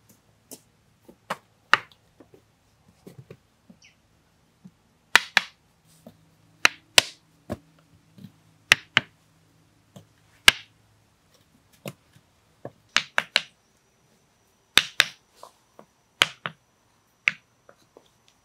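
Sharp, irregular wooden knocks, some in quick pairs: a hammer tapping round log-slice pavers into place on the ground.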